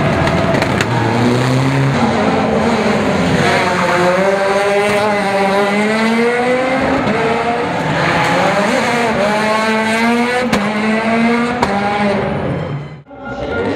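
Mitsubishi Lancer Evolution rally car's turbocharged four-cylinder engine revving through the gears, its pitch climbing and dropping back several times, then cutting out briefly near the end.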